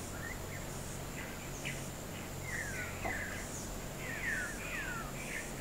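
Birds calling: several short whistled notes, each sliding downward, repeated from about a second and a half in, over a faint steady high insect drone.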